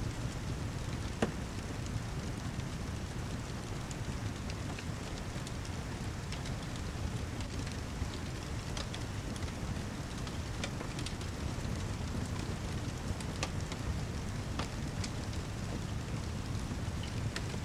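Steady heavy rain mixed with a fireplace: a low rumble under an even wash of rain, with scattered sharp crackles and one louder pop about a second in.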